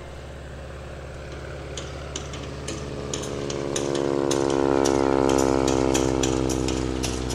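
A 450-horsepower Stearman biplane's Pratt & Whitney R-985 radial engine and propeller running at power as the plane flies past low. It swells to loudest about halfway through, then drops in pitch as it passes, with irregular sharp crackles over it.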